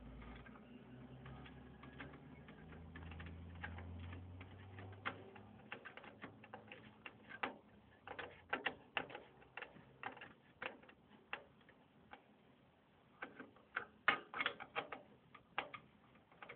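Screwdriver driving a CPU heatsink's mounting screw into the motherboard: a run of short, irregular clicks and ticks that start about five seconds in and come in quick clusters.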